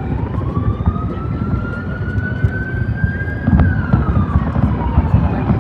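A siren wailing slowly up and down, its pitch rising for about three seconds and then falling, over the low rumble of fireworks shells exploding; a sharper bang comes a little past halfway.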